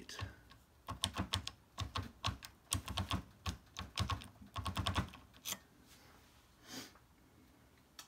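Key blank in an impressioning grip being rocked and twisted in the keyway of an old Corbin wafer padlock: a run of irregular light clicks and knocks, several a second, for about five seconds, then quiet. The wafers binding on the blank are what leave the impression marks on it.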